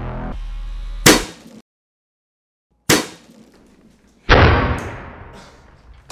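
Sharp bangs from a kinetic water ram firing a 60 PSI blast into a drain trap clogged with Orbeez: one about a second in, then a moment of dead silence and two more, the last loud with a long fading tail.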